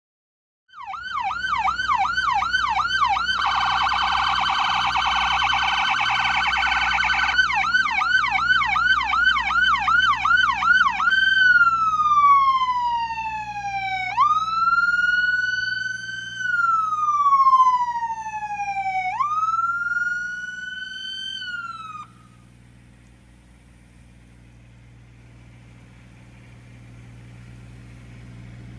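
Emergency siren of a brush fire truck: a fast yelp, a few seconds of a steady horn tone, more yelp, then three slow rising-and-falling wail cycles that stop suddenly. After the siren, the truck's engine runs quietly, growing louder near the end.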